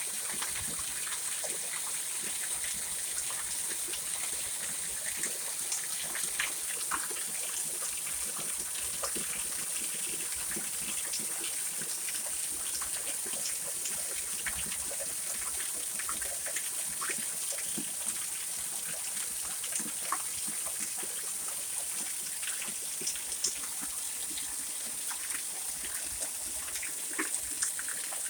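Heavy rain pouring down steadily during a tornado-warned thunderstorm, with scattered sharp drip and splash ticks.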